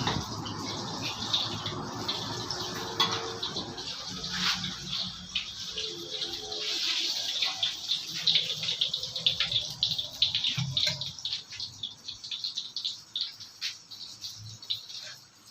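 Bananas deep-frying in hot oil: a steady sizzle with dense fine crackling.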